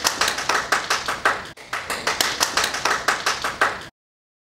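Hands clapping in quick, even claps, about five a second, with a brief break about a second and a half in. The clapping cuts off suddenly near the end.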